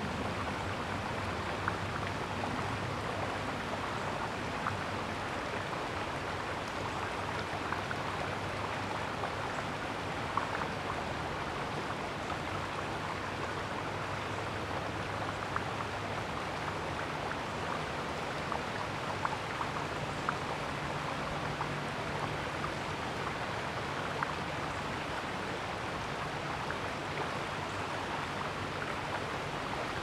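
Steady rushing outdoor background noise with scattered faint short ticks and a faint low hum beneath.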